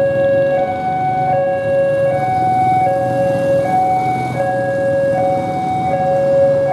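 Railway level-crossing warning alarm sounding: an electronic two-tone signal alternating between a lower and a higher note about every three-quarters of a second, over a low rumble.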